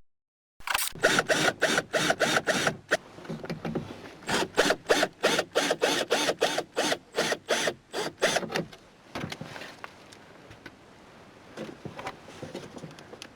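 Drill with a 1/8-inch bit drilling out the grommet that holds a car's inside door handle. The motor runs in rapid pulses, about four or five a second, in two spells, and a few fainter clicks follow near the end.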